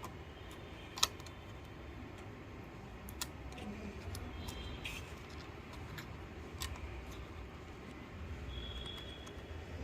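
Scattered sharp clicks and light taps of computer parts being handled and fitted, the loudest about a second in, over a low steady hum.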